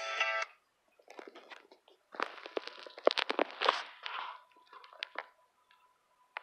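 Ghost-box app (Real Ghost Tools) on a phone's speaker putting out choppy, crackling fragments of garbled sound, with a thin steady tone coming in about halfway. The listener takes the fragments for speech in an unknown language.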